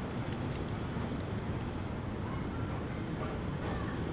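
A steady high-pitched insect drone from the rain forest over a constant low rumble.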